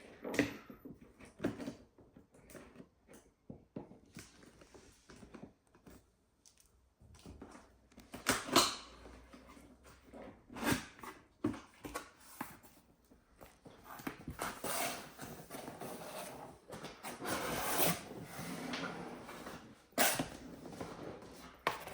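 Cardboard box and packaging being handled during an unboxing: scattered knocks and clicks with stretches of rustling.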